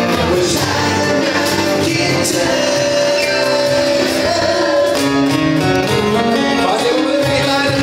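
Live band performance: a male singer singing a Thai pop ballad over acoustic guitar, cajon and keyboard.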